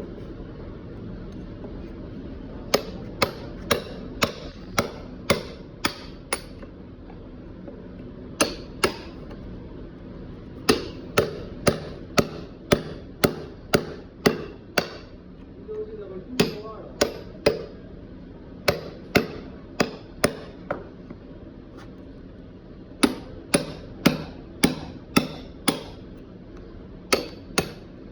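Hammer blows in quick runs of several strikes, about two or three a second, with short pauses between the runs, during lead-acid battery repair work.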